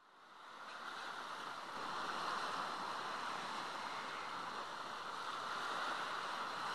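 Steady wash of sea surf on a rocky shore, fading in over the first couple of seconds and then holding even.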